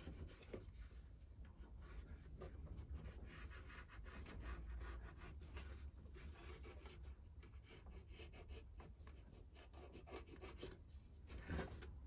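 Pencil scratching short marks on a paper template laid over the wooden hull of a model ship: faint, quick strokes in uneven runs, with hands rubbing and shifting the paper strip.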